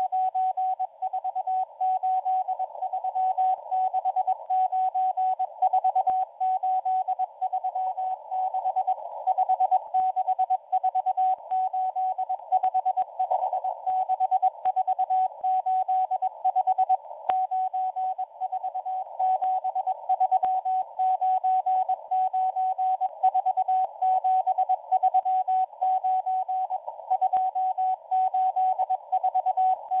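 Morse code from the M01 numbers station received on shortwave: a single beeping tone keyed on and off in dots and dashes, sending groups of numbers. It sits over the hiss of a narrow receiver filter, with faint static crackle.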